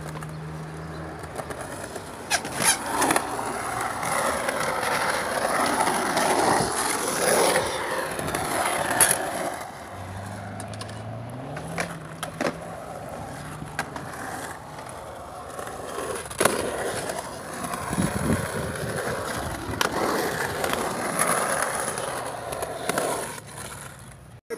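Skateboard wheels rolling over a concrete bowl, swelling and fading as the skater rides up and down the transitions, with several sharp clacks as the board lands on the concrete.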